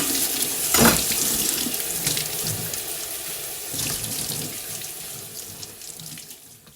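Kitchen tap running water into a sink, with a sharp knock about a second in. The water sound fades steadily toward the end.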